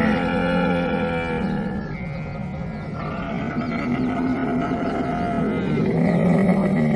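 Young camel calf calling: long, drawn-out calls on a low pitch. One call fades about a second and a half in, and another builds louder toward the end.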